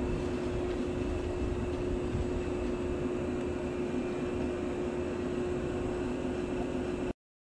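Stationary 115 series electric train humming steadily at the platform: a constant mid-pitched hum from its running auxiliary equipment over a low rumble. It cuts off abruptly near the end.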